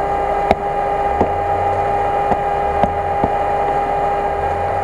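Lada Niva's engine idling steadily, with a constant high hum over a low, uneven rumble. About five sharp clicks or knocks sound through it.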